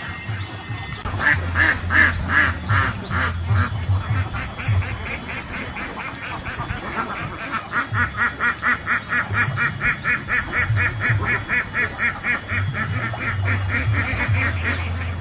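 Domestic ducks quacking: a short run of quacks about a second in, then a longer, rapid, regular series of quacks from about the middle until near the end.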